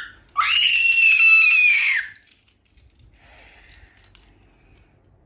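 A child's high-pitched shriek, rising sharply and then held for about a second and a half before it stops.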